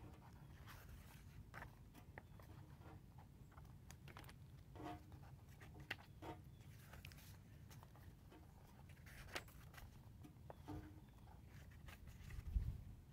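Faint rustling and light taps of an album photobook's paper pages being handled and turned, with one louder soft thump near the end as a page is turned over.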